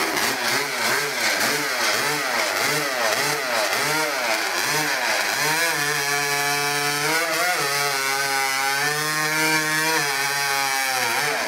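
Open-class hot saw, a modified racing chainsaw engine, revving in quick up-and-down surges about twice a second, then held at high revs for about five seconds with a brief dip, before cutting off near the end.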